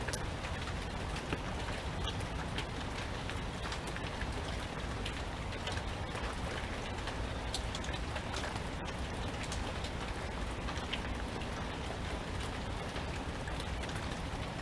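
Steady rain falling, with individual drops ticking now and then over an even hiss.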